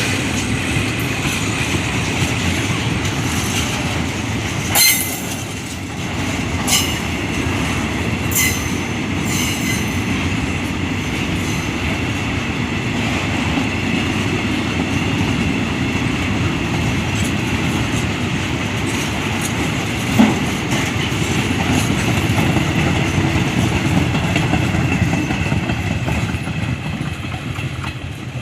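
A train rolling past on the rails with a steady rumble, a faint high wheel squeal and a few sharp clacks from the wheels over rail joints.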